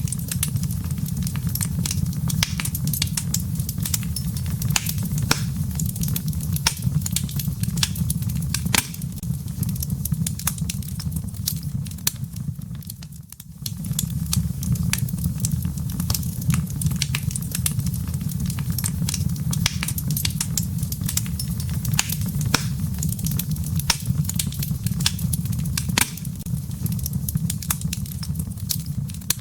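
Wood fire crackling in a fireplace: a steady low rumble of burning logs under frequent sharp pops and snaps. The sound briefly drops away about halfway through.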